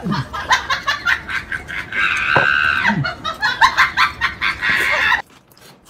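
Chicken clucking, a quick run of short clucks with one longer drawn-out squawk about two seconds in. It cuts off abruptly about five seconds in, as an edited-in comic sound effect does.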